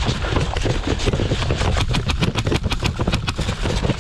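Low, fluttering wind rumble on a body-worn camera's microphone, with a fast, irregular run of sharp clicks and rattles over it.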